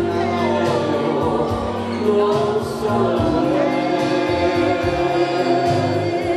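A man singing a slow ballad into a microphone over an instrumental backing of long held chords.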